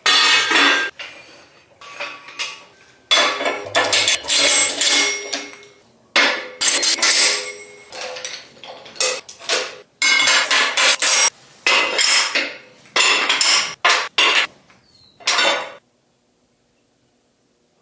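Metal work on steel: a run of loud metallic clangs and ringing hits in short bursts that start and stop abruptly, ending about two seconds before the end.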